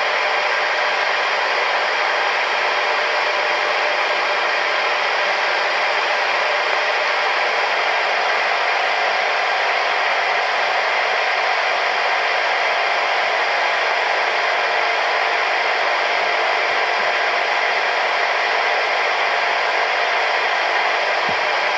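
Steady loud static hiss from a television playing a blank stretch of VHS tape, with faint steady tones running through it.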